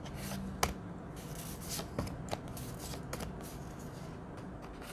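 Large tarot cards being slid and flipped one by one from hand to hand, with soft papery swishes and a few sharp card snaps, the loudest about half a second and two seconds in.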